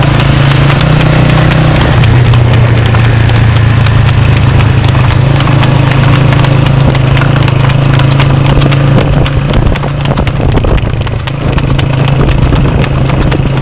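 Hooves of a horse trotting fast on asphalt while pulling a cart: a rapid, continuous clip-clop over a steady low rumble.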